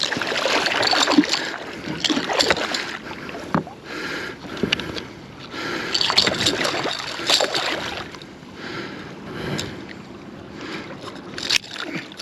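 Water sloshing and splashing around a kayak, with irregular knocks and rattles against the hull as a striped bass is brought in and handled.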